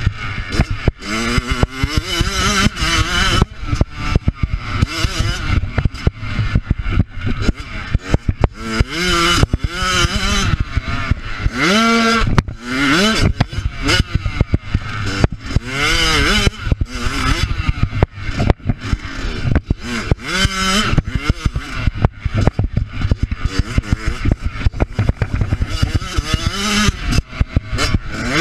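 Motocross bike engine heard from on board, revving hard and easing off again and again, its pitch climbing through each gear and dropping at the shifts. Many short knocks and rattles from the rough track run over it.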